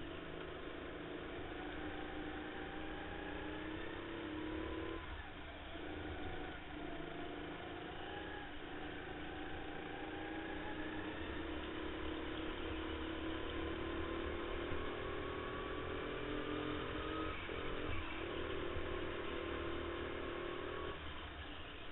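Racing go-kart's motor heard from on board, running hard with its pitch climbing steadily down the straights and dropping sharply when the driver lifts for corners, about five seconds in and again a few times near the end.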